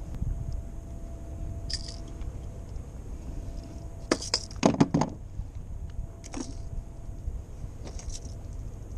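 Wind buffeting the microphone on a kayak as a low, gusty rumble. About four to five seconds in comes a quick cluster of metallic clinks and knocks, with a few lighter clicks before and after.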